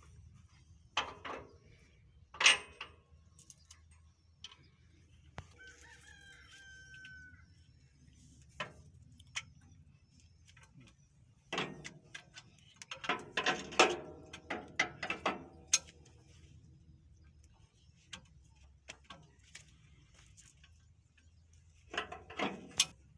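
Scattered sharp metal clicks and clanks of tractor hydraulic hose quick-couplers being handled and fitted at the rear valve block, with a louder run of clanks about halfway through. A drawn-out animal call, likely a farm bird, sounds in the background.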